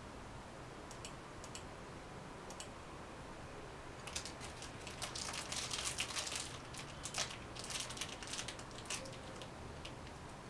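A few sharp computer-mouse clicks, then about five seconds of dense clicking and crinkling as a small object is handled in the hands.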